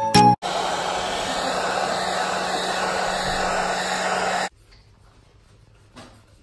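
Hair dryer blowing steadily with a low motor hum, drying wet paint on netting; it cuts off abruptly about four and a half seconds in. A short chime jingle ends just before it starts, and faint room sound follows.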